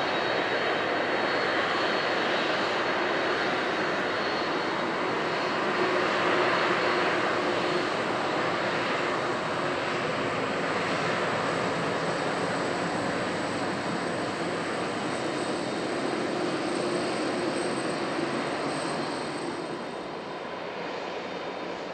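Boeing 767-300's twin turbofan engines at low taxi power as the airliner rolls slowly past: a steady rushing hum with a thin high whine. It grows a little fainter near the end as the aircraft moves away.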